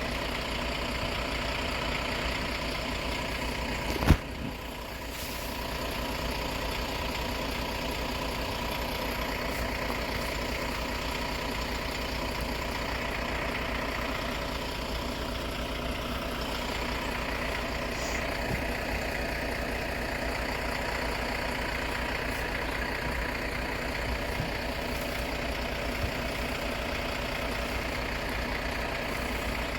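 A diesel engine idles steadily throughout, with one sharp knock about four seconds in.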